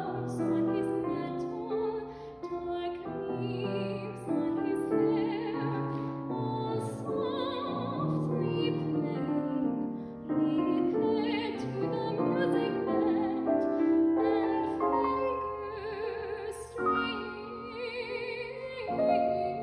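A young female classical singer singing an art song with vibrato, in long held phrases over piano accompaniment.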